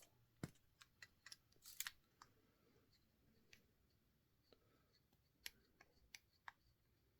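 Near silence broken by faint, scattered clicks and light taps from handling a measuring tool and small milled metal test parts.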